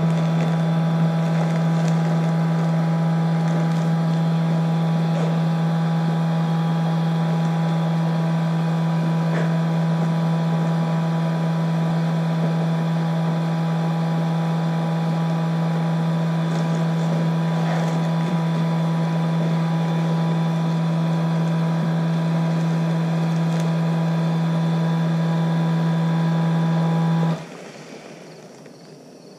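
Small electric vacuum pump running with a steady hum while it draws a vacuum bag down over a carbon fiber layup in a mold, then switched off and stopping abruptly near the end.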